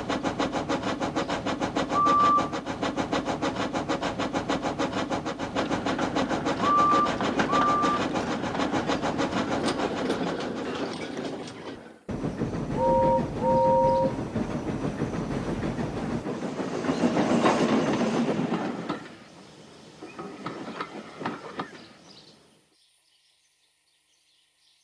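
Steam locomotive running with a rapid, even chuffing beat, giving one short whistle about two seconds in and two more around seven seconds in. After a sudden cut, another steam engine gives two short, lower-pitched whistle toots, then passes loudly and fades away.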